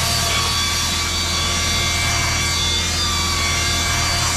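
A drill-driven round scrub brush spinning on a cloth car seat, its motor giving a steady whine over a low hum, the pitch dipping slightly now and then as the brush is pressed into the fabric.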